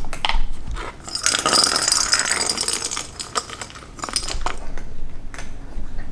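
A jingle ball rolling round the track of a plastic circular cat toy, rattling and jingling, with a few lighter clicks after it slows.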